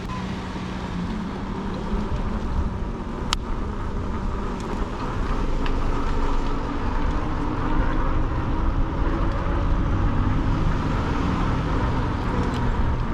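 Riding noise from a fat-tire e-bike on a paved street: a steady rumble of wind and road noise with a faint hum, and one sharp click about three seconds in.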